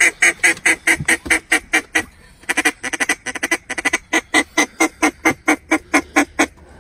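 Hand-blown mallard duck call sounding a fast comeback call: long runs of short, loud quacks at about five or six a second, with a brief pause about two seconds in, meant to turn passing ducks back toward the hunters.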